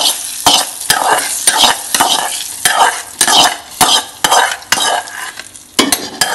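A metal spoon scraping and stirring in a pan, about two strokes a second with sharp clinks, as a hot oil tempering of mustard seeds, dals and curry leaves is scraped into rice batter.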